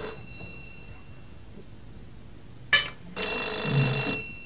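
A landline telephone rings once, a ring of about a second, coming a little under three seconds in. It follows a sharp knock.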